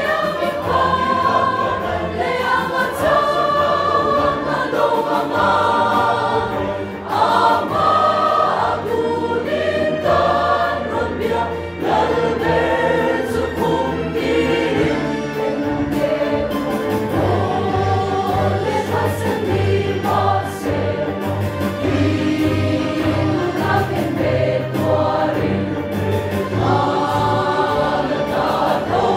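Mixed church choir of women and men singing a Mizo hymn in several voice parts.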